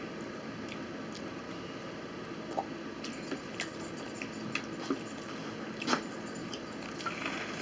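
Someone chewing a mouthful of spaghetti, with scattered light clicks and taps of a fork against plastic dishes, the sharpest about six seconds in.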